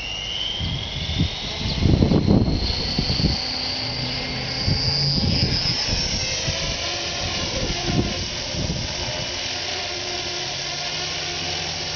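Align T-Rex radio-controlled helicopter flying: its motor and rotor whine rises slowly in pitch over the first several seconds, then holds steady. Gusts of wind buffet the microphone with low rumbles about two seconds in and again near eight seconds.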